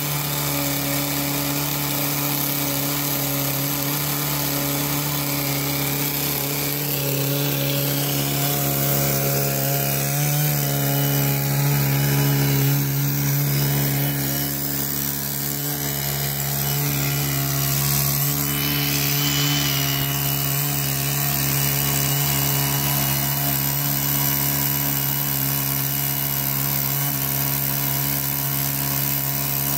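Two-stroke chainsaw mounted in a homemade chainsaw mill, running steadily at full throttle as its chain rips lengthwise through a large log.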